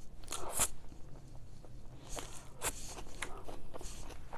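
A person eating: several crunchy bites and chews of fast food, spaced out over a few seconds.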